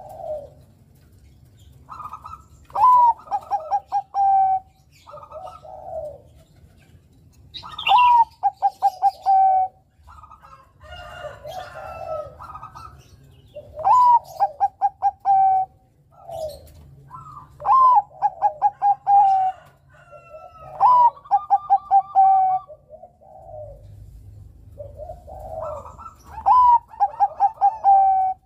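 Zebra dove (Bangkok perkutut) cooing its song over and over: each phrase is a higher opening note followed by a quick run of pulsing coos, about six phrases a few seconds apart.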